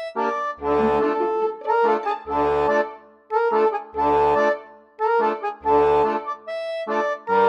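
Background accordion music: a tune of held chords with a deep bass note coming in about every second and a half.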